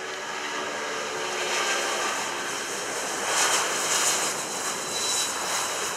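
Boeing 757 jet airliner at takeoff power accelerating down the runway. The engine roar grows louder as it passes, loudest about halfway through, with a steady high whine over it.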